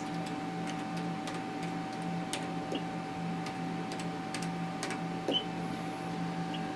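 Steady electronic hum with a thin whine, a soft low pulse about twice a second, and scattered light clicks, typical of ultrasound scanning equipment running.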